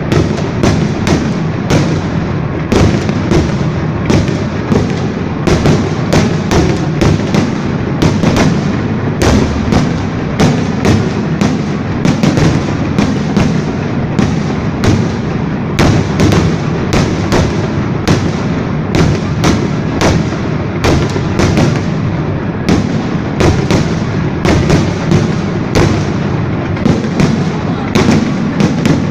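Fireworks salute: a rapid, unbroken series of sharp bangs, a few each second, over a continuous low rumble of bursting shells.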